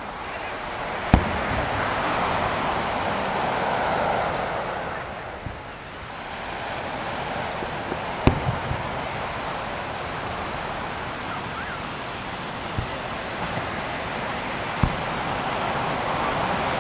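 Aerial firework shells bursting with sharp booms a few seconds apart, the loudest about a second in and another about eight seconds in, over the steady, swelling wash of surf breaking on the beach.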